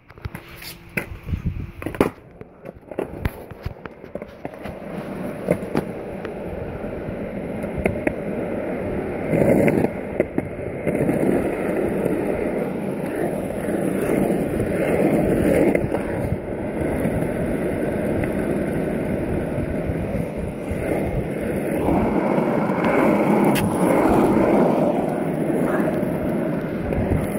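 Skateboard wheels rolling on an asphalt street, a steady grinding rolling noise that builds over the first few seconds and then holds. A few sharp clicks and knocks come near the start.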